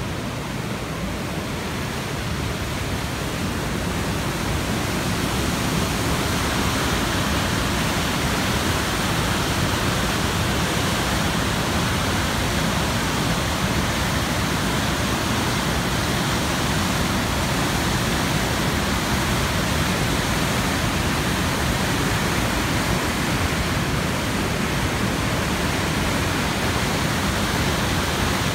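Bracebridge Falls in record flood: a steady, full rush of floodwater pouring over the falls and dam. It grows a little louder over the first few seconds, then holds even.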